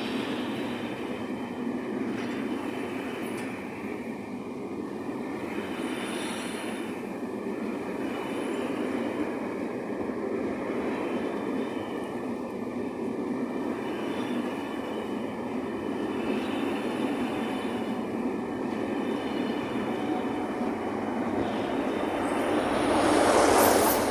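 A train of heritage passenger coaches rolling past close by, a steady rumble of wheels on the rails. Near the end it grows louder as the diesel locomotive at the rear passes.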